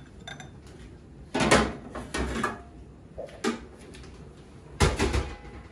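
A few short knocks and clatters of kitchen things being handled and set down on a worktop, about four in all, the loudest about a second and a half in and again near the end.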